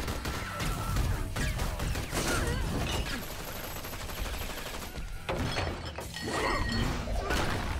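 Action-film fight sound effects: bursts of gunfire with crashing, shattering impacts, densest in the first few seconds and again after about five seconds.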